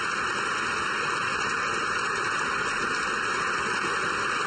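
A steady, even rushing noise with no words over it.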